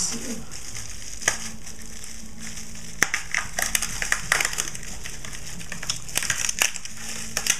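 Packing material being handled and unwrapped by hand: irregular crinkling and crackling with sharp clicks, busiest in the second half, over a faint steady hum.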